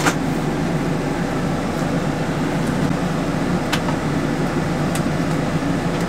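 RV rooftop air conditioner running with a steady hum and rush of air, its ceiling box sealed with foam baffles. A few light clicks and taps come through as the plastic ceiling cover is pushed into place.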